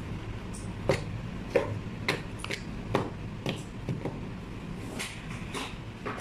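Light plastic clicks and taps as a plastic toy axe is handled and fitted into a plastic toy robot's hand, coming irregularly about every half second over a low steady hum.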